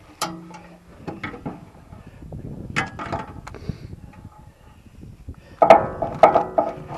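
Blue plastic maple-sap tubing being handled and fitted: scattered clicks and knocks, then a quick run of louder knocks and rattles near the end.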